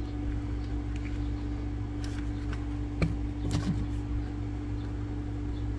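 Steady low hum with a constant tone, and over it a few faint clicks and taps of fingers working a replacement transistor's leads into the holes of a circuit board. The sharpest click is about three seconds in, with a couple more just after it.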